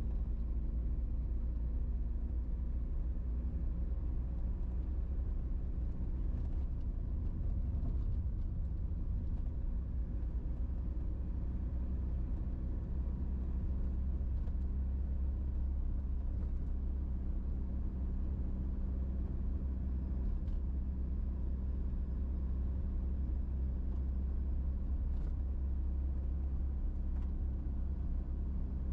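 Car driving at steady speed on a paved road: a continuous low rumble of engine and tyres, with a few faint ticks now and then.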